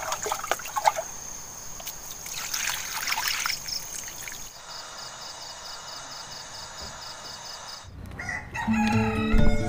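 Water poured from a pot splashing into a basin, over a steady high-pitched buzz that turns into a fast, even pulsing about halfway through. Intro music starts near the end.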